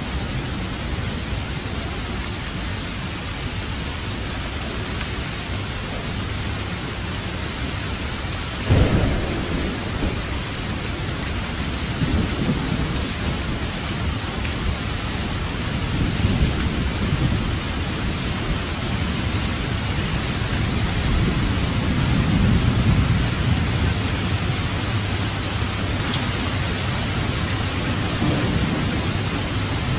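Thunderstorm: steady heavy rain with a sharp thunderclap about nine seconds in, followed by several rolling rumbles of thunder.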